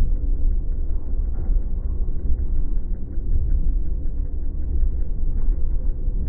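San Francisco cable car rolling slowly on its rails under cable pull: a steady low rumble, with a run of light rapid clicking through the middle.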